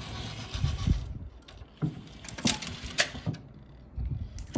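Technics SL-MC7 CD changer loading a disc: a motor whirs for about the first second, then the mechanism clicks and clunks several times.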